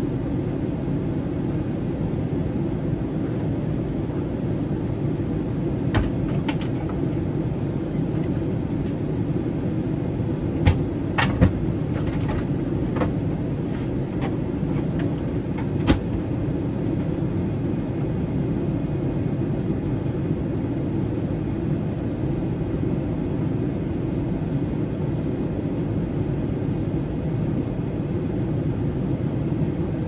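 Steady low cabin roar of a Boeing 777-300ER in flight, the rush of airflow and engines. A few brief light clicks and knocks from the cabin come about six seconds in, around eleven to twelve seconds, and once more at sixteen seconds.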